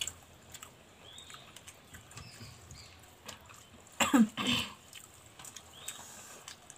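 A person coughing once, briefly, about four seconds in, over faint soft clicks and rustles of fingers working rice on plates.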